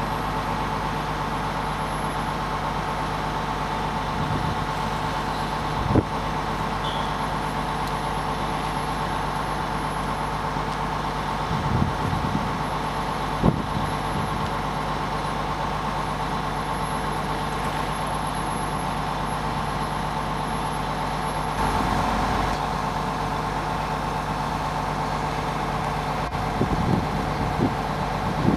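Heavy truck's diesel engine running steadily as it slowly moves a multi-axle trailer loaded with a precast concrete bridge girder, with a couple of short knocks and brief hisses along the way.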